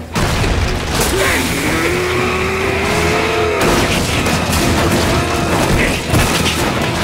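Animated fight sound effects: a sudden smash at the start, then booms and the crash of tumbling wooden crates, over dramatic music.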